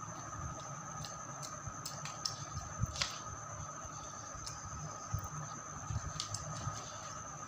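Light scattered clicks and scrapes of a metal spoon in a bowl of sweet vermicelli as a small child eats, with a louder click about three seconds in.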